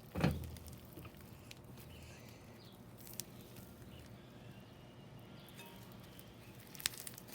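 Homemade slime with packing peanuts in it being mixed by hand: a thump just after the start, then faint squishing with a few scattered small clicks and crackles.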